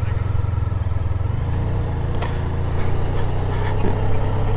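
Motorcycle engine running steadily while riding along a lane, with tyre and road noise; the engine note shifts slightly a little over a second in.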